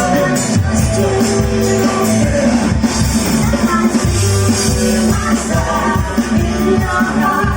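Live rock band playing, with drums, bass and guitar and a voice singing over them.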